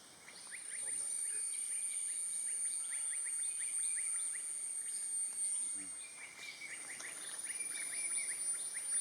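Forest ambience: an insect's high, steady drone breaks off briefly about six seconds in and then resumes. Over it, birds give many quick, short chirping notes in rapid runs.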